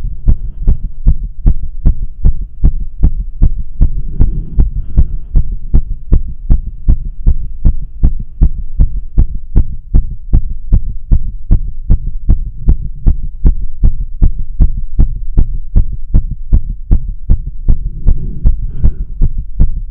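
Fast human heartbeat heard through a stethoscope with a microphone in its tubing, pressed on the chest: strong, even beats at a little over two a second. The rapid rate is a bout of tachycardia at rest, the heart pounding hard.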